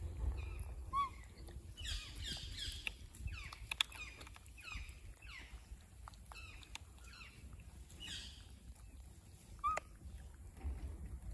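High-pitched animal chirps: short downward-sweeping calls in quick clusters. Two brief lower squeaks come about a second in and near the end, over a low rumble.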